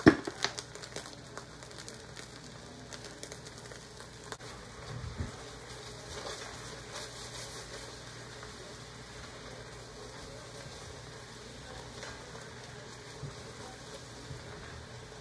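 Ketchup-and-honey sauce sizzling and bubbling as it comes to a boil in an oiled nonstick frying pan, stirred with a silicone spatula, with small scattered pops and clicks. A sharp knock right at the start.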